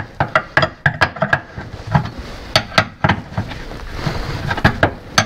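Irregular metallic clicks and knocks, about three a second, some with a brief ring: hand tools gripping and turning a rusted brake pipe union nut on a rear axle.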